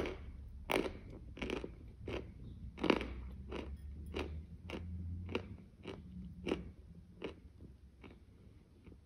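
Close-miked chewing of a mouthful of zefir marshmallow dessert with the mouth closed, one chew about every three-quarters of a second, growing fainter near the end.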